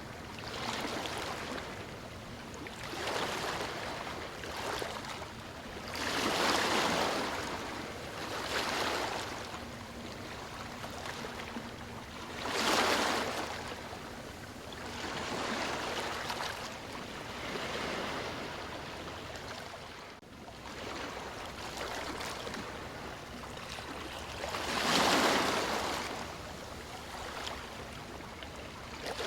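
Running water rushing and splashing, swelling louder and fading back every few seconds.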